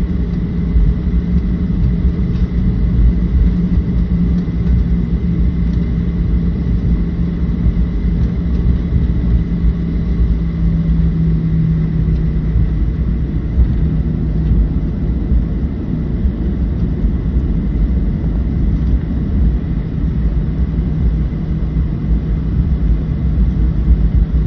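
Steady low rumble of a Boeing 737-700's CFM56 jet engines and airflow heard inside the passenger cabin, with a steady hum.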